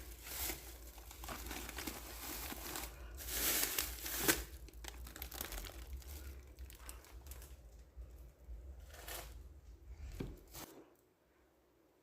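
Plastic food packaging crinkling and being torn open in irregular rustles, loudest about four seconds in. A low steady hum underneath cuts off suddenly near the end.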